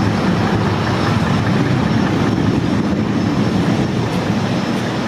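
KLM Boeing 747-400 jet engines rumbling steadily as the airliner climbs away after takeoff.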